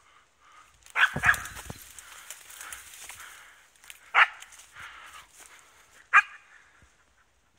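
East Siberian Laika barking at a wild boar, the hunting dog's bay: four sharp barks, two in quick succession about a second in, then single barks about two seconds apart. Between them there is fainter rustling and handling noise from pushing through brush.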